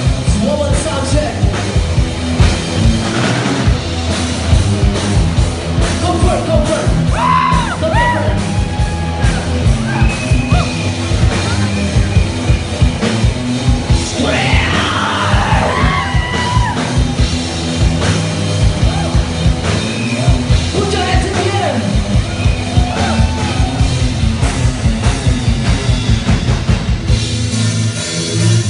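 Rock band playing live, with yelled and sung vocals over a fast, steady beat.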